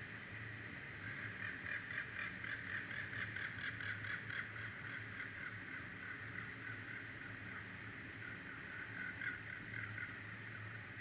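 Bald eagle calling: a rapid run of short, high piping notes starting about a second in and lasting a few seconds, then a shorter run near the end, over a steady outdoor hiss.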